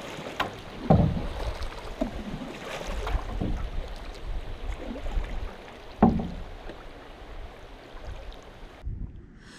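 Water rushing and lapping around a paddled canoe moving through a stream's riffles, with two sharper, louder thumps, about a second in and about six seconds in.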